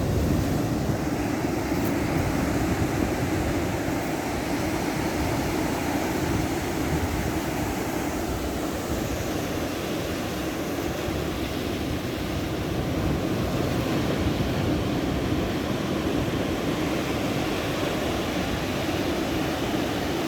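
Ocean surf: a steady low rush of breaking waves, with no single crash standing out.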